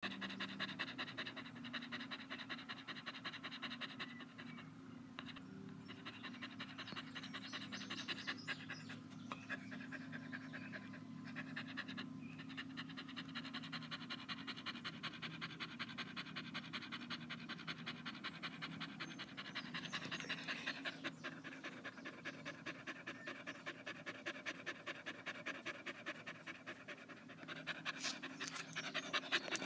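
Beagle panting fast and steadily through an open mouth, a rapid even rhythm of short breaths.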